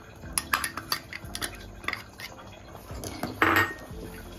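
Steel ladle tapping and scraping against a glass bowl and a steel cooking pot: a run of sharp clinks, then a louder scrape near the end as the milky pumpkin kheer is stirred.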